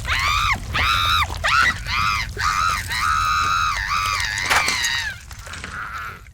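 High-pitched, squeaky cartoon-character voice making a string of wordless cries, each arching up and then down in pitch, which fade out about five seconds in.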